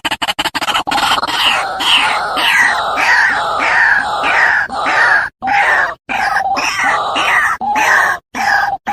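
White-breasted waterhen (ruak-ruak) lure call: a rapid run of pulsed notes gives way, about a second in, to loud, harsh, repeated calls, roughly two a second, each falling in pitch, with a few abrupt short breaks.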